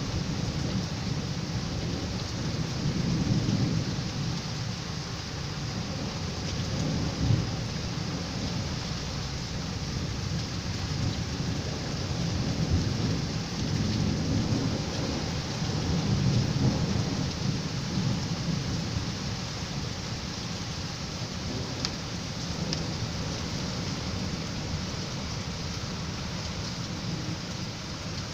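Severe thunderstorm: steady heavy rain, with low rumbles swelling and fading several times and one short sharp knock about seven seconds in.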